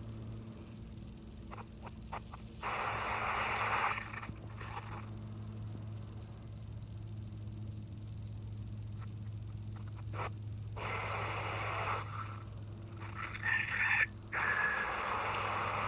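A faint, high chirp repeating evenly about two to three times a second, typical of an insect such as a cricket, over a steady low hum. Louder bursts of rustling noise come about three seconds in, around eleven seconds, and near the end.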